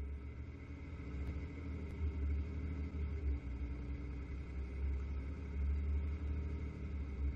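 Spartan fire-rescue truck's diesel engine running as the truck drives, a steady low rumble.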